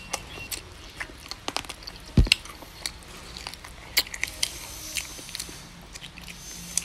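Close-up eating sounds: wet smacks, slurps and clicks of lips and mouth as a man sucks and gnaws meat off a cooked goat leg bone, with a thump about two seconds in.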